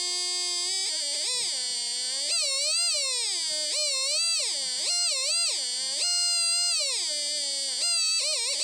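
Buzzy electronic tone from an NE555 oscillator played through an earphone. It holds one pitch for about a second, then swoops up and down again and again like a theremin as the light on its phototransistor changes.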